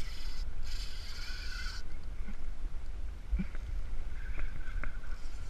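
Fishing reel's drag buzzing as a hooked bonito takes line, steady for about the first two seconds, then a few short spurts. Constant wind rumble on the microphone underneath.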